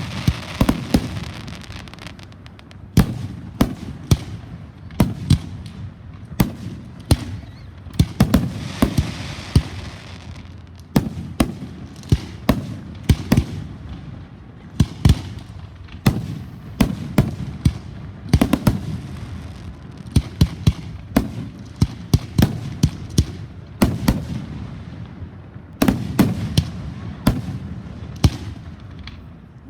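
Fireworks going off: a steady run of sharp bangs and crackling reports, several a second at times, with a low rumble between them.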